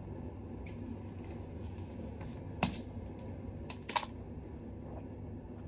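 A few sharp clicks and snips of scissors working at a plastic bottle's seal, the loudest about two and a half seconds in and a quick pair near four seconds in, over a steady low hum.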